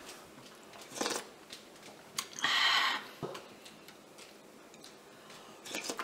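Close-up eating sounds of hot silken tofu stew: soft mouth clicks and chewing, with a short, loud slurp about two and a half seconds in and smaller ones about a second in and near the end.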